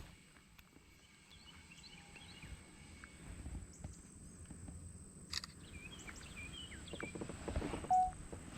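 Quiet river ambience with faint bird chirps scattered through it, and a single sharp click about five seconds in.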